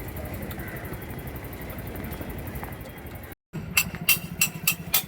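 A Hero Xpulse motorcycle's single-cylinder engine runs steadily for about three seconds. Then the sound cuts, and a quick run of about six sharp metallic clinks follows.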